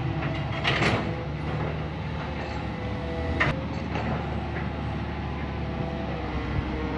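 Hitachi long-reach excavator running as it swings and raises its boom: a steady engine drone with a faint whine that shifts in pitch, and a few sharp metallic clanks or squeals, one about a second in and another past the middle.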